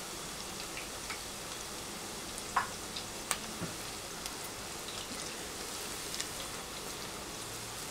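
Hot oil sizzling with a steady hiss and scattered crackles as batter-coated cauliflower florets deep-fry, at the end of their first fry. A few sharper clicks stand out near the middle.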